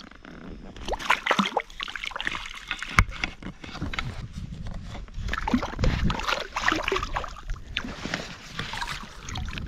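Lake water sloshing and splashing against a float tube while a landed brook trout is handled in a rubber landing net, with irregular knocks and rustles of handling and a sharp knock about three seconds in.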